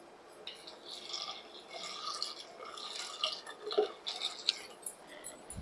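Water being poured into a cooking vessel, a faint splashing pour that begins about half a second in.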